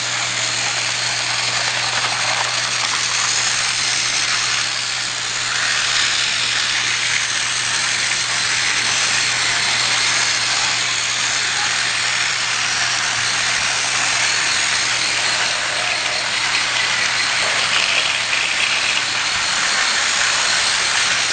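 Battery-powered toy train's small electric motor whirring steadily, with a constant hiss over it.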